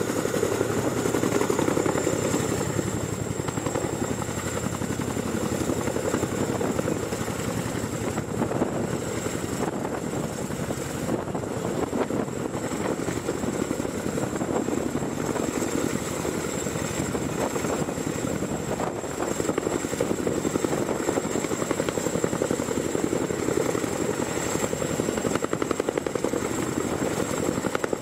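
CH-47SD Chinook tandem-rotor helicopter with its twin turboshaft engines at power, lifting off and hovering low: a rapid, even beat of the two rotors under a steady high turbine whine.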